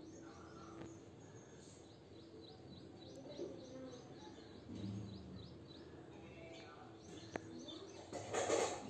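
Small birds chirping in quick, repeated short calls in the background while fingers work through hair. There is one sharp click a little past seven seconds and a brief louder rustling noise near the end.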